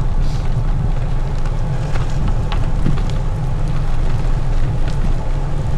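Steady wind rush and rumble on the microphone of a moving road bike riding in heavy rain, with rain and tyre noise over rough road and a few scattered clicks.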